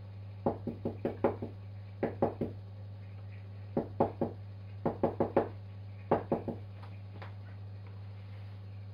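A clear plastic filter cartridge filled with resin is tapped in quick runs of three or four knocks, about five runs in the first seven seconds, to settle the resin and drive out air pockets. A steady low hum runs underneath.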